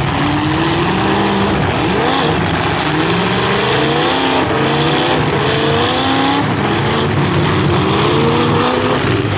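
Demolition-derby cars' V8 engines revving hard again and again, each rev rising in pitch, over a steady din of engine noise.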